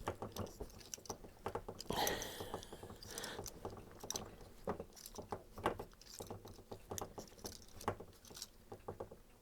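Times Microwave coax stripping tool being turned by hand around LMR-400 coax, its blades scraping through the cable end: a run of irregular small clicks and rasps, a little louder about two and three seconds in.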